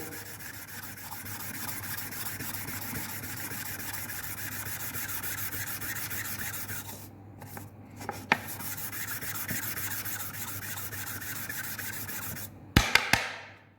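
Metal camshaft bearing cap being rubbed back and forth by hand on fine 800-grit sandpaper on a flat surface, lapping its mating face flat. The rubbing stops briefly about seven seconds in, resumes, and ends with a few sharp knocks near the end.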